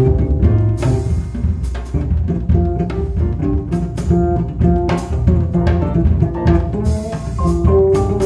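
Jazz samba played live: a double bass plucked in a busy, melodic line, probably the bass to the fore, over a steady drum-kit groove with cymbal strokes.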